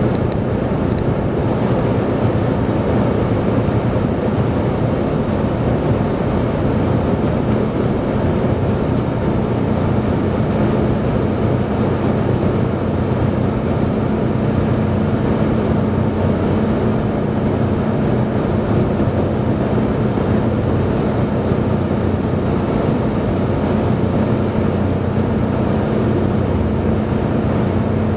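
Car cabin noise at highway cruising speed: a steady rumble of tyres, engine and wind, with a low hum that grows a little stronger about halfway through.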